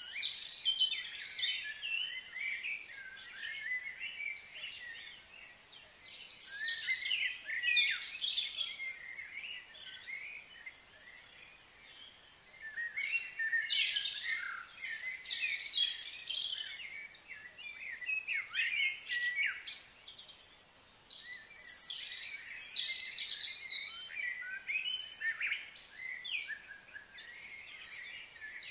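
Birds chirping and calling in overlapping bouts of quick high notes and sweeps, with short lulls between the bouts.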